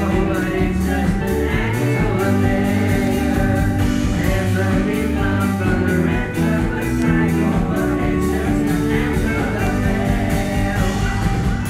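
Live rock band playing: a man singing lead vocals over electric guitar, keyboard and drums, with a steady drum beat.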